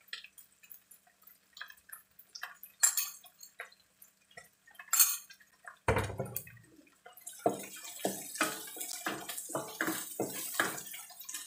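Scattered light clinks and taps of utensils as seasoning and salt go in. Then, from about seven seconds in, a wooden spoon scrapes and stirs through chilli paste sizzling in a steel wok.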